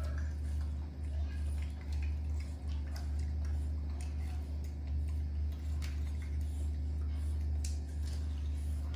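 Young macaques chewing mango slices: faint, irregular clicks and smacks of eating over a steady low hum.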